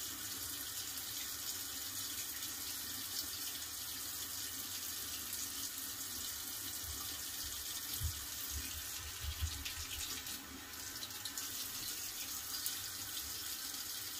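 Bathroom sink tap left running, a steady rush of water into the basin, with a few soft low thumps about eight to ten seconds in.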